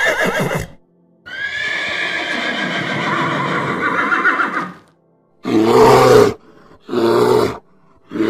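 Horse neighing: a whinny ends just after the start, and a long whinny of about three and a half seconds follows. Three short, deeper calls come in the last few seconds.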